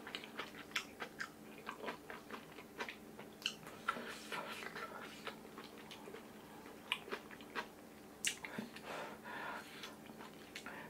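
Close-miked chewing of kimchi stew with rice: soft wet chews with small irregular clicks and crunches.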